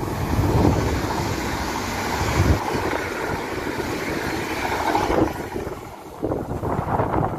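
A regional passenger train passing close at speed: a loud, steady rush of wheel and air noise that eases off after about five seconds as the train goes by, with wind buffeting the microphone.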